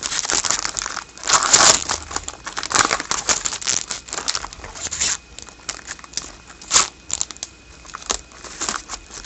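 Foil wrapper of a trading-card pack crinkling and tearing as it is opened and handled, busiest over the first five seconds, then lighter rustles and clicks of cards being handled.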